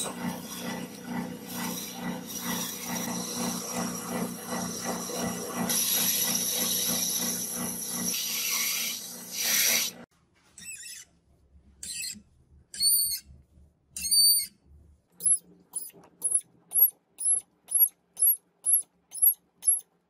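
Metal lathe drilling into a spinning brass cylinder with a large twist drill: the machine runs steadily with a high-pitched cutting squeal for about ten seconds. Then the sound breaks into short high-pitched squeaks of the drill biting the brass, quickening to about two a second near the end.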